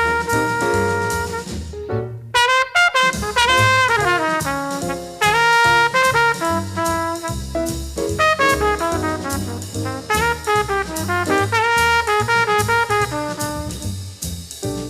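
Small-group jazz recording: a horn plays a fast, swinging melodic line over walking bass and drums. The line breaks off briefly about two seconds in, then resumes.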